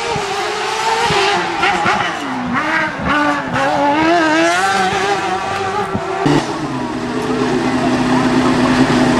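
Hillclimb race car engine at high revs, its pitch rising and dropping repeatedly through quick gear changes. About six seconds in, the sound switches abruptly to a steady, even engine note.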